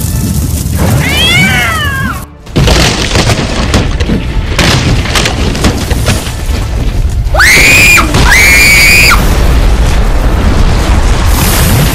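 Loud lava sound effects: a steady low rumble with booms and crashes. A shrill cry falls away about a second in, and two loud shrill held cries come about two-thirds of the way through.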